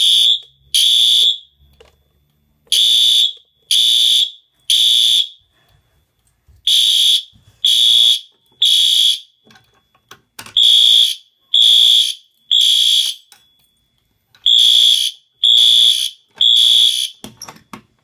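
Fire alarm horn strobes, a System Sensor SpectrAlert Advance P2R and a Wheelock AS, sounding loud, high-pitched blasts in the temporal-three pattern: three blasts, a pause, then three more, about every four seconds. This is the standard fire evacuation signal, set off by the pulled manual pull station. The horns stop shortly before the end, followed by a few clicks.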